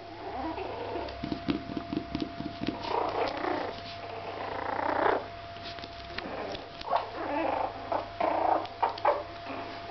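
Yorkshire terriers growling in rattling bursts, a show of displeasure at a knock.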